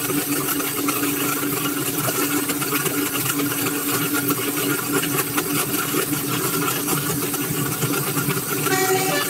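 Bus diesel engine running, a steady clattering hum. Near the end a multi-tone telolet basuri horn starts sounding held musical notes.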